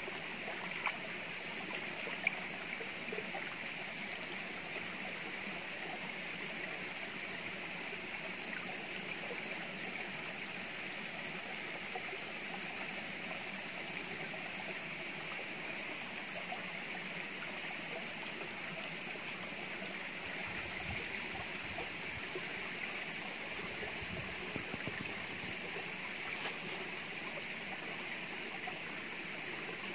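Shallow stream running steadily over rocks. A faint high chirp repeats about once a second through the first half, and a single sharp click comes near the end.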